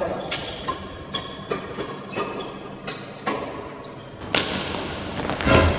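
Badminton rally: a string of sharp racket hits on a shuttlecock, mixed with footsteps and short shoe squeaks on the court floor. A louder thump comes near the end.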